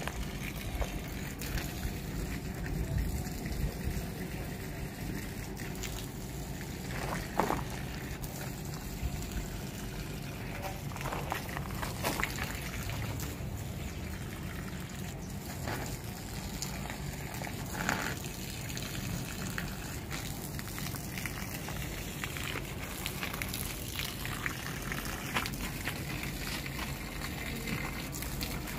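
Water running from a garden hose onto potted plants and soil: a steady trickle and splash, with a few brief knocks.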